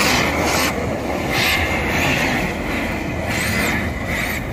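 Electric motors of RC drift cars whining up and down in pitch as the throttle is blipped, in about four bursts, each with a rushing hiss.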